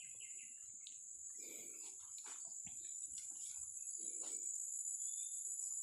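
Steady high-pitched insect chorus, with a couple of soft rustles about a second and a half and four seconds in.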